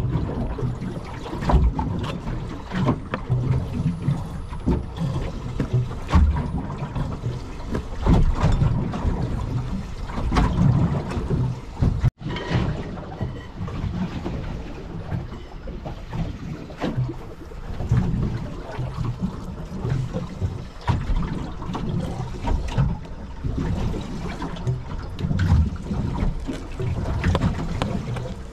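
Wind buffeting the microphone and choppy water slapping against a small boat's hull, with scattered knocks and clicks.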